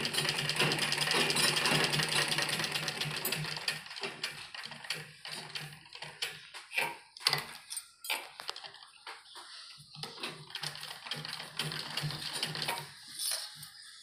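Gulzar treadle sewing machine stitching a folded hem. A fast, even run of stitches lasts about the first four seconds, then it goes stop-start in short bursts with clicks and the rustle of cloth being repositioned, and runs briefly again near the end.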